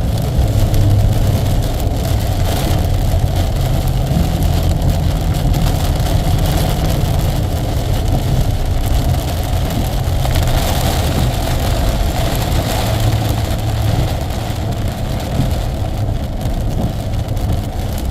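Car driving at a steady pace: the engine's low drone shifts in pitch a couple of times over steady road and wind noise.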